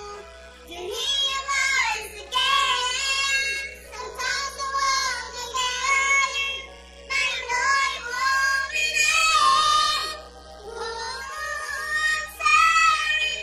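A song with its vocals sped up and pitched high, chipmunk-style, sung in phrases of a few seconds over backing music.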